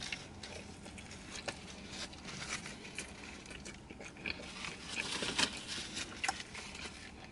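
A person biting into and chewing an egg-and-cheese bagel sandwich: scattered soft smacking and clicking mouth sounds.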